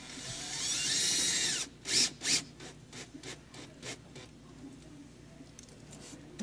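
Cordless drill driving self-drilling screws through a water heater's metal flange into an RV sidewall. The motor runs steadily for about a second and a half with a slightly rising whine. It then gives two loud short bursts and a run of shorter, weaker trigger bursts as the screw seats.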